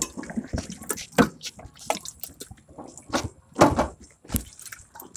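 Irregular bursts of rustling and knocking from a bicycle being ridden, picked up by a phone at the handlebars.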